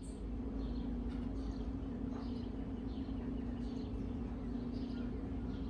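A steady low hum with faint, short high chirps scattered through it.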